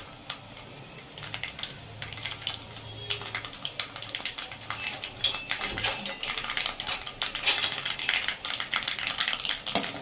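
Mustard seeds, cumin and dried red chillies spluttering in hot oil in a kadai for a tempering: a dense, irregular crackle of sharp pops that grows busier after a few seconds.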